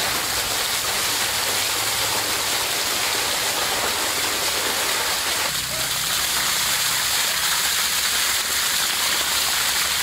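A heavy jet of water gushing from a pump's outlet pipe and splashing down onto a person and the ground: a steady, unbroken rush of falling water.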